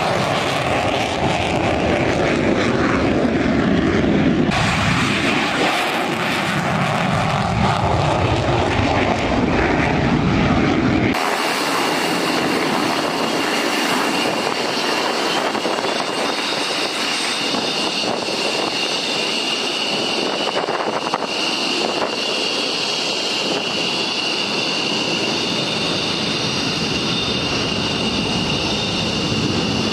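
Military aircraft engines during low flypasts, with pitch gliding as the aircraft pass. About eleven seconds in, the sound changes abruptly: the low rumble drops away and a steady high engine whine remains.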